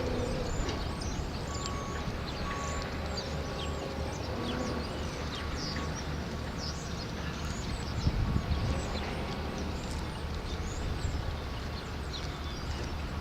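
Many small birds chirping in quick, short notes, over a steady low rumble.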